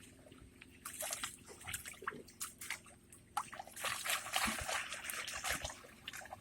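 Water sloshing and splashing in irregular bursts, busiest in the second half.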